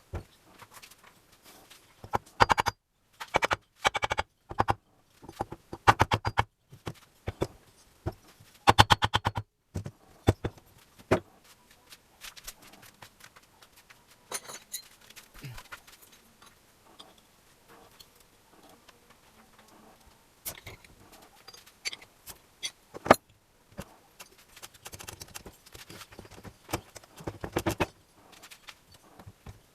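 Metal hand tools and parts clicking and rattling during repair work, in short bursts of quick clicks with pauses between.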